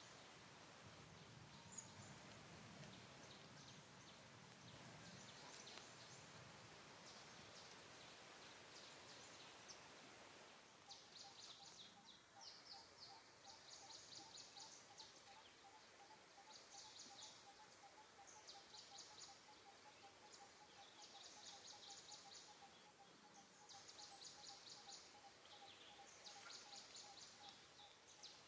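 Faint outdoor ambience with animal calls. For the first ten seconds or so there is only a low hiss. After a sudden change it holds repeated short, high, rattling trills over a steady, fast-pulsing call.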